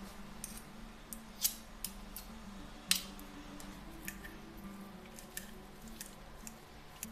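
Metal spoon and fork clinking and tapping against a glass bowl as butter is added to boiled potatoes and the fork starts mashing them: a handful of scattered sharp clicks, the loudest about three seconds in.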